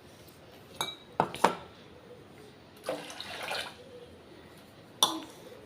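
Water poured from a glass into a cooking pot, with a short splash of liquid about three seconds in and a few sharp clinks of glass against the pot.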